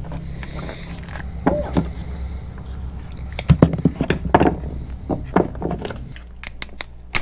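Hands handling a roll of clear tape and a wired inline resistor: scattered clicks and rustles, thickest in the middle, over a low steady hum that stops about six seconds in.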